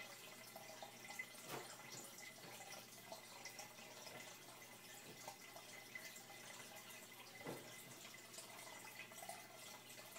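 Faint, steady trickle and splash of water pouring into a fish tank from a return tube at the surface, with a few slightly louder drips now and then.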